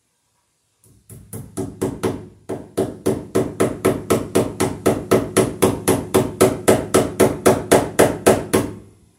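Hammer blows striking steadily, about three and a half a second, on the wooden ceiling where the light is being mounted. They start about a second in, build up over the first couple of seconds, and stop shortly before the end.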